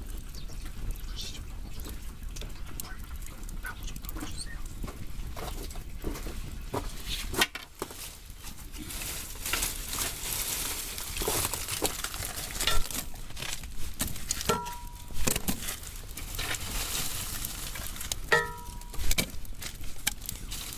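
Firewood burning: a wood fire crackling with irregular pops and snaps. A hiss rises after about eight seconds, and two short whistling notes come near the end.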